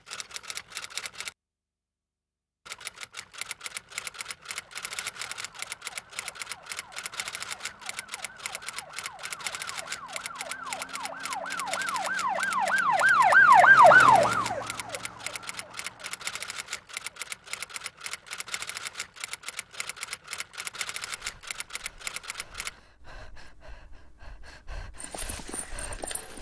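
Rapid, continuous typewriter key clicks. A pulsing, warbling tone swells louder and higher in pitch, peaks about halfway through as the loudest sound, then falls away. The clicking stops a few seconds before the end.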